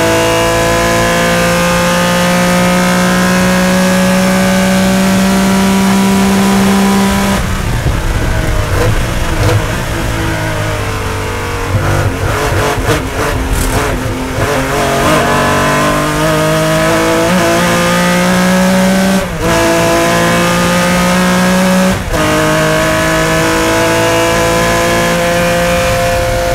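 Air-cooled 3.0-litre flat-six of a 1970 Porsche 911 race car, heard from the cockpit, at full throttle with its pitch slowly rising. About seven seconds in the driver lifts off and the note turns ragged and wavering as the car slows through a corner. It then pulls hard again, with upshifts about 19 and 22 seconds in, each a brief dip followed by the pitch climbing again.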